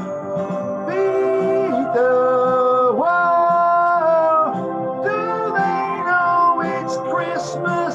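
A man singing a slow melody over a backing track, holding long notes through the first half and then moving to shorter notes.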